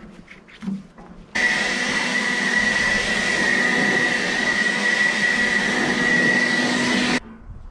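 Handheld blower running with a steady high whine, blowing sawdust out of a bandsaw mill's blade housing during a blade change. It switches on abruptly about a second in and cuts off abruptly near the end.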